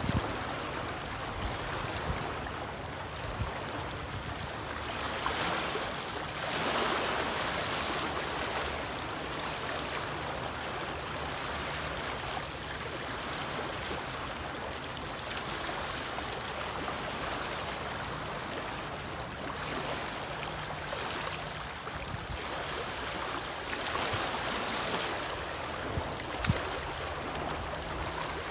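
Small wind-driven lake waves lapping and splashing against a rocky shoreline, swelling louder every several seconds as a larger wave breaks. One short sharp tap sounds near the end.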